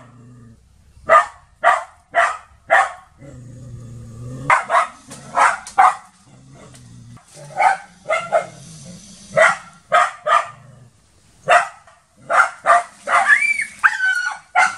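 A dog barking at a monitor lizard in short, sharp barks that come in bursts of two to four, about two a second, with pauses between bursts. Near the end the barks give way to a higher, wavering whine.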